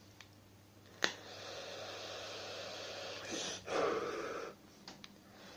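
A draw on an e-cigarette dripping atomizer with freshly wicked, liquid-soaked cotton. About a second in there is a click, then about two seconds of steady hiss from the inhale, then a louder breathy exhale of vapour.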